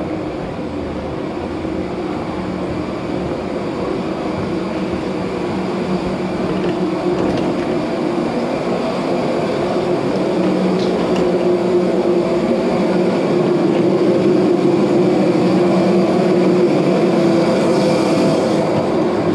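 Steady droning hum of airliner and jet-bridge air-handling machinery, with a low steady tone in it, growing gradually louder on the approach to the aircraft door.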